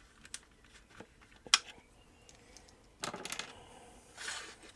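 Small plastic clicks and rattles from handling a plastic toy helicopter, with a sharp click about a second and a half in and a quick run of clicks about three seconds in, then a short rubbing noise near the end.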